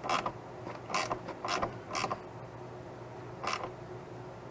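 Ratchet wrench worked in short strokes, about five sharp rasps spaced irregularly, as a suspension nut is run up tight.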